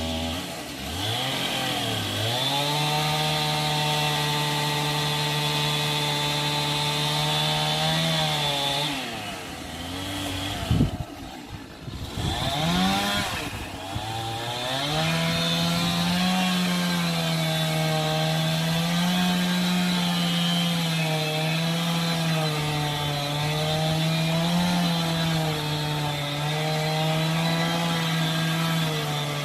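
Chainsaw running at high revs while cutting into a tree. About nine seconds in it drops off the throttle, with a sharp knock, then revs back up and cuts again, its pitch wavering under load.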